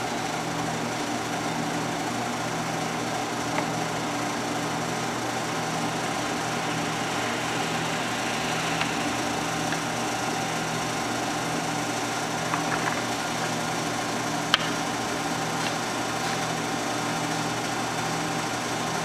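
Steady mechanical hum of espresso-bar equipment, with a low note that pulses in an even, slow rhythm. A few faint clicks, and one sharp click about three-quarters of the way through.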